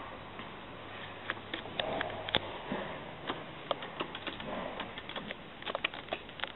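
Hydraulic elevator machinery with a low steady hum that stops with a click about two and a half seconds in. Many small irregular clicks and knocks follow.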